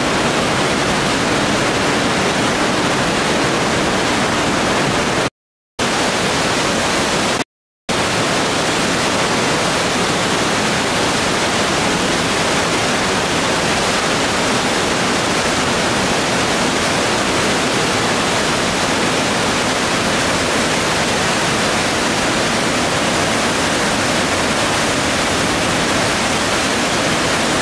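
Trümmelbach Falls, a waterfall inside a cave, crashing through a narrow rock gorge: a loud, steady rush of falling water. It breaks off to silence twice for an instant, about five and seven and a half seconds in.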